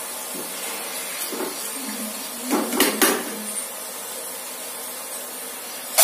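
Oil sizzling steadily as field beans (avarekalu) deep-fry in a kadai, the beans fried through and being lifted out. A few sharp metal clinks about three seconds in, and one more near the end, as the slotted steel spoon knocks against the pan and the steel bowl.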